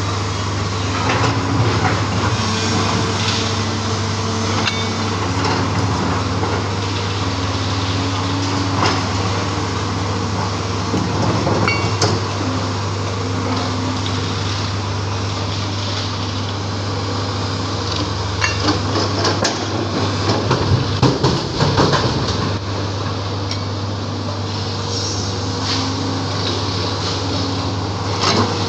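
JCB 205 tracked excavator's diesel engine running steadily under load, with scattered knocks and scrapes of the steel bucket in broken rock and concrete rubble. A heavier run of clattering and rumbling comes about two-thirds of the way through, as rubble is handled.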